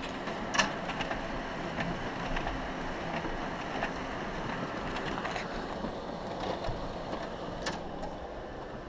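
Ricoh Aficio MP C5502 office copier running with a steady mechanical hum. A couple of sharp clicks come about half a second in and near the end.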